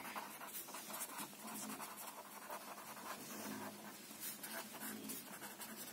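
Faint scratching of a pen on paper, a quick run of short strokes as a line of words is written out by hand.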